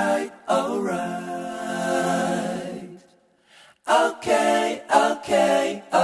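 Intro music of voices singing with no instruments heard: a long held chord, a break about three seconds in, then a run of short sung notes.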